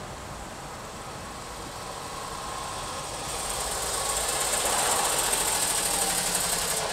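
Traffic and running noise of a car moving slowly in city traffic, heard through a dashcam's microphone inside the cabin. It grows louder about three seconds in, when a hiss joins it.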